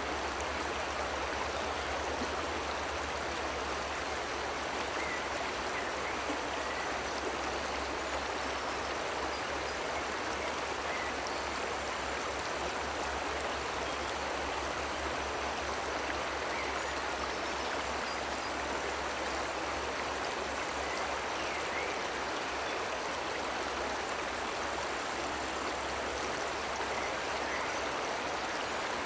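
Waterfall cascading, a steady unbroken rush of water with a low rumble underneath.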